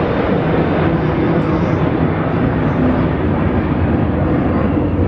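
Jet aircraft engines running: a steady, loud rush of noise with a low hum underneath.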